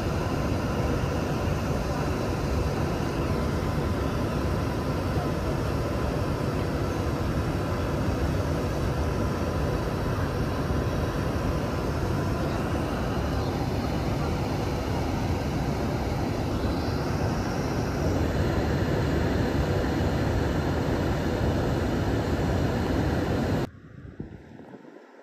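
A standing Trenitalia E.464 electric locomotive gives a steady loud drone with a faint whine, the sound of its cooling fans and on-board equipment running while it waits. The drone gets a little louder about two-thirds of the way through, then cuts off abruptly near the end, leaving only faint outdoor sound.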